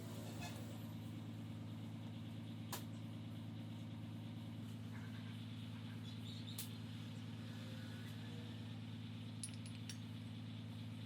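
A steady low mechanical hum with a few sharp clicks or taps over it.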